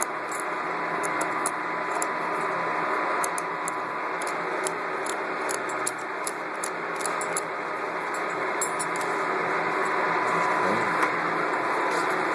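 Light metallic clicks and clinks, scattered and irregular, as the clamp mechanism and its screws are handled and fitted on the sewing machine, over a steady background hiss.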